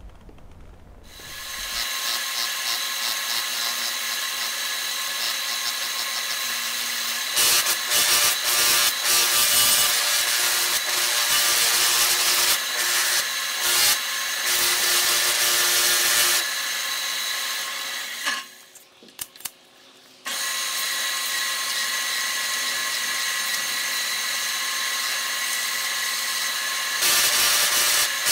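Belt grinder running with a steady high whine and hiss, a wooden axe handle pressed against the sanding belt in spells that make it louder and rougher. The sound drops away for a couple of seconds about two-thirds through, then picks up again.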